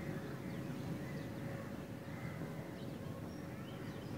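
Scattered short bird calls over a steady low rumble of outdoor background noise.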